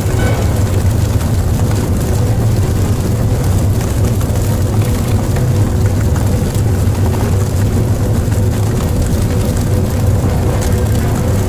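Steady, loud low rumble with a faint droning hum over it, unchanging throughout.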